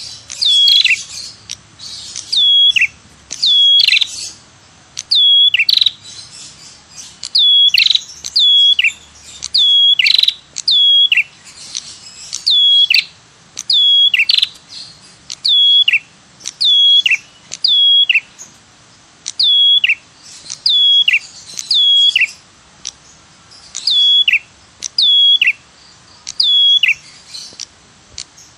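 Ashy tailorbird calling over and over: a dry, buzzy rattle followed by one or two clear notes that drop sharply in pitch, the phrase repeating every second or so.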